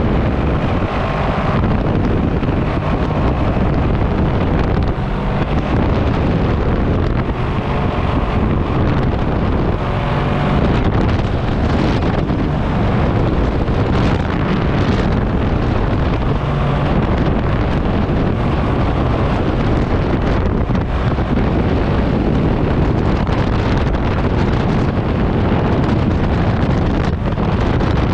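Paramotor trike's engine and propeller running steadily in flight, with heavy wind buffeting on the microphone.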